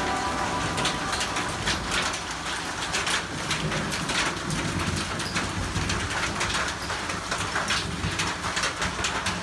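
Hailstones falling and striking hard surfaces: a dense, irregular patter of small sharp clicks over a steady rain-like hiss.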